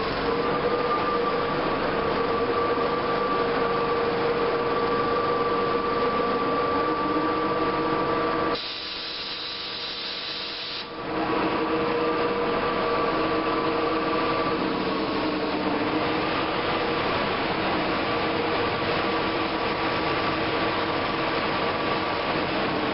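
Traction-motor blowers and motor-alternator set of a WCG2 1500 V DC electric locomotive running with a steady, multi-tone whine, the blowers being switched on one by one; a lower tone joins about seven seconds in. Near the middle the hum drops away for about two seconds, leaving a high tone, then comes back.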